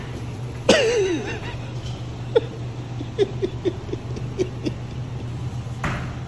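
A man gives a startled yelp about a second in, his voice wavering and falling, then a quick run of short laughs follows. A steady low hum runs underneath.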